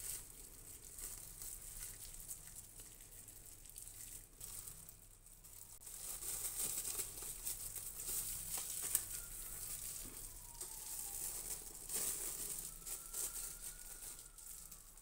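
Plastic cling film crinkling and rustling irregularly as it is wrapped and rolled by hand around a stuffed turkey tenderloin.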